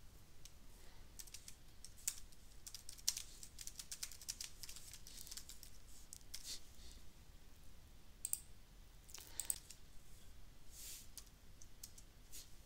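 Faint computer keyboard typing: a quick run of keystrokes over the first few seconds, then a few scattered clicks later on.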